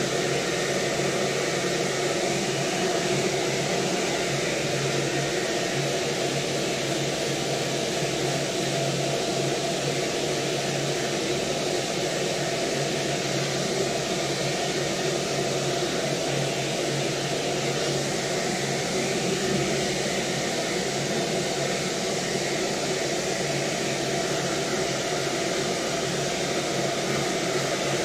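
Hose-type hair dryer blowing steadily, an even rush of air over a constant motor hum.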